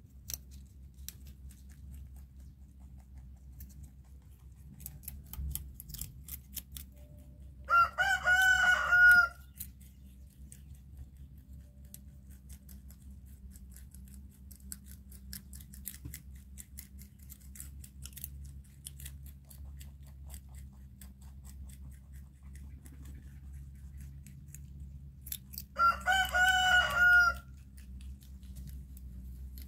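A rooster crows twice, about eight seconds in and again near the end, each crow a loud call lasting about a second and a half. Between the crows there are only faint scattered clicks over a low steady hum, fitting rabbits chewing greens.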